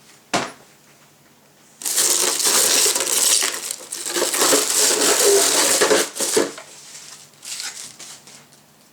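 A sharp knock, then about four seconds of loud crackling and rustling as packaging is handled and pulled apart during unboxing, followed by a few quieter scrapes.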